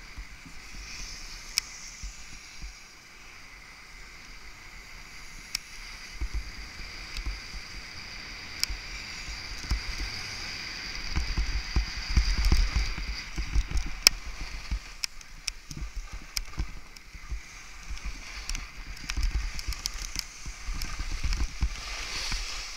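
Skis hissing and scraping over snow on a downhill run, with wind gusting on the microphone and a few sharp clicks.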